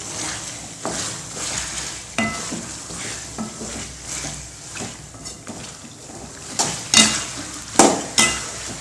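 Chicken pieces and ginger-garlic paste being stirred and scraped around a metal pan with a wooden spatula, over a frying sizzle. Near the end come a few sharp metal clanks against the pan.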